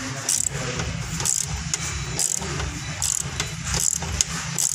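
Hand ratchet wrench clicking in repeated short bursts, about one to two a second, as it tightens a running-board bracket bolt. A steady low rumble runs underneath.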